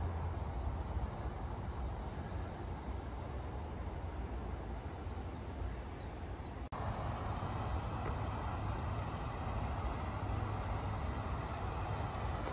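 Steady outdoor background noise, a low rumble with a hiss over it, with a few faint high chirps in the first half. It cuts out for an instant about halfway through, then carries on a little brighter with a faint steady high whine.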